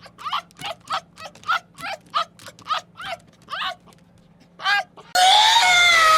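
An animal giving a rapid series of short, pitched calls, about three a second, then after a brief pause one more call and a loud, drawn-out scream that begins about five seconds in.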